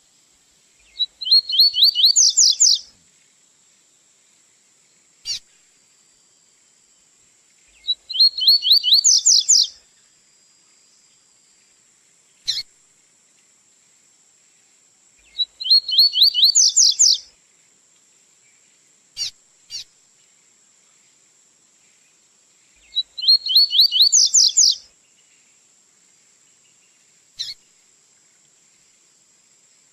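Double-collared seedeater (coleirinho) singing in the 'tui-tui' song style: four phrases of about two seconds each, every seven seconds or so. Each phrase is a rapid run of rising whistled notes, and short single call notes come between the phrases.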